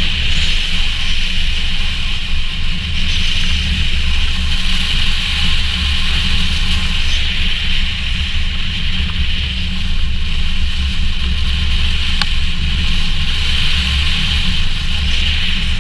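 Car driving along a snow-covered road, heard from a camera on its roof: a steady low rumble with a hiss above it.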